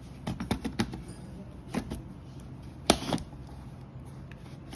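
Clicks and knocks of plastic and metal laptop parts being handled, likely the hard-disk caddy: a quick run of light clicks, a few more, then one sharp knock about three seconds in.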